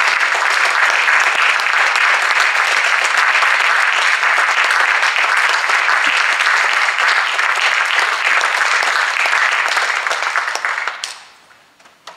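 Audience applauding, a steady dense clapping that dies away about eleven seconds in.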